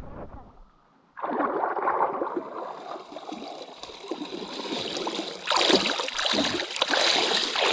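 River water gurgling and splashing close to the microphone. It starts suddenly about a second in and grows louder and brighter a little past the middle.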